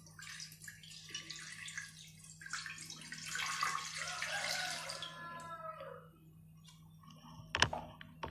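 Water poured from a plastic jug into a nonstick pan over a steel steaming stand, splashing and trickling for about five seconds before it stops. A single sharp knock comes near the end.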